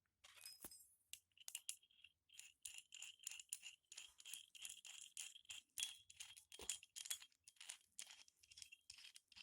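Faint metallic scraping and clinking of steel hole saw set parts being handled and fitted, in quick strokes about three a second with a thin ringing note.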